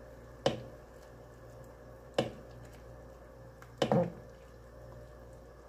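Metal ladle scooping simmering broth and pouring it back over a whole chicken in a pan, three times about a second and a half apart, each a short sharp splash and knock that dies away quickly.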